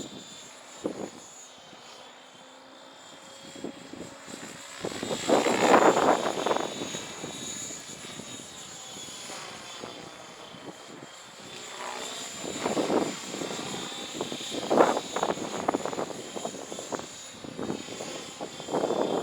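Align T-Rex 700E electric RC helicopter in flight: a steady high whine from its brushless motor and rotors. Louder rushing surges come and go several times, rising around a third of the way in, again past the middle and near the end.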